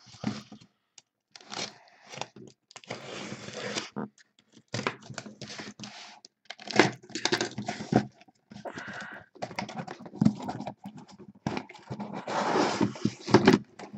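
Packaging being handled and torn: irregular tearing, crinkling and rustling of paper and cardboard, with scattered knocks and scrapes.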